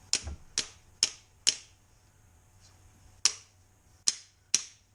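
Hammer tapping a punch to drive the pivot pin out of a clamp: seven sharp taps, four about half a second apart, a pause of nearly two seconds, then three more.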